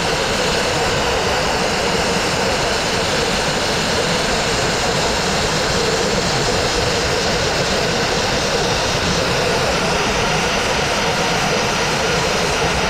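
Dustless wet-abrasive blasting: the nozzle blasts water-mixed fine crushed glass against a brick wall, a loud steady hissing roar that does not let up. It is stripping hard cement-backed Sandtex masonry paint down to bare brick.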